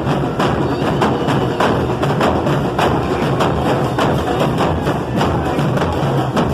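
Band music with a steady percussion beat.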